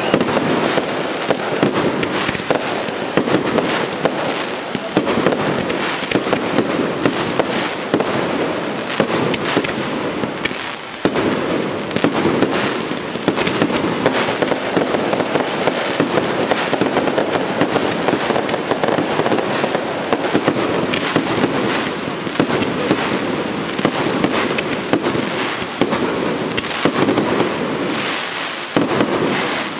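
Professional fireworks display: a dense, continuous barrage of launches and bursting aerial shells and comets, many bangs a second with no let-up, easing only briefly about ten seconds in.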